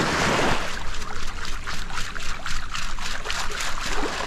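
Water sloshing and draining through a perforated metal sand scoop swished in shallow surf, sifting sand away from a metal-detector target. A splashing wash at first, then a run of small sharp clicks and ticks as it drains.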